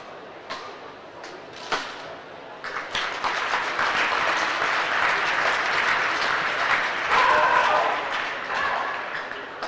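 A few sharp racket strokes on a shuttlecock during a badminton rally, then an arena crowd breaks into applause and cheering as the point ends, loudest about seven seconds in and easing off near the end.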